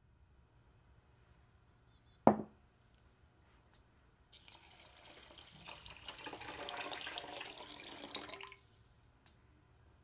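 A glass bowl is set down on a wooden counter with a single clunk about two seconds in. Then water is poured from a glass jug onto rice in the bowl for about four seconds, filling it to soak the rice.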